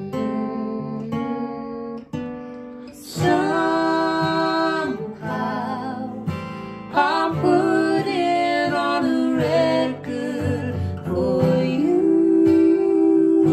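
Acoustic guitar strummed on its own for about three seconds, then a woman and a man come in singing together over the guitar.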